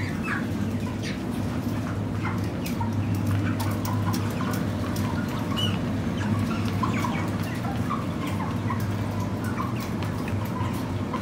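A flock of 37-day-old Cobb 500 broiler chickens at rest, giving many short, scattered soft calls, over a steady low hum. Light clicks come throughout.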